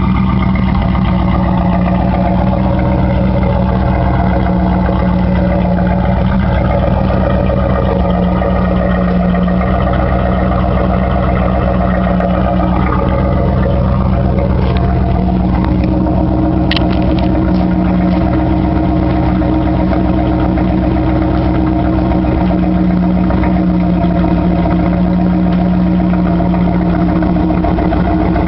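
1988 Pontiac Firebird Trans Am's 350 cubic-inch V8 running loud and steady through straight pipes, at an even, unrevved engine speed.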